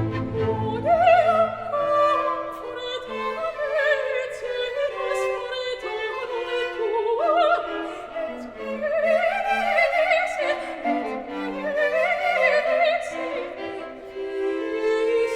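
Classical background music: an operatic singing voice with wide vibrato, holding long notes and moving between them, over bowed strings.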